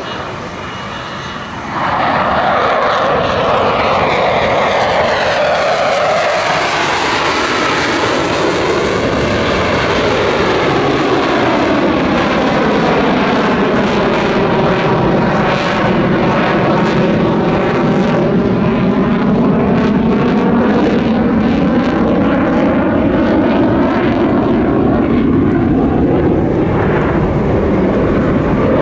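Jet noise from a Dassault Rafale C fighter's twin Snecma M88 engines as it flies its display pass. It grows suddenly louder about two seconds in and stays loud, with a sweeping, phasing tone as the jet moves across the sky.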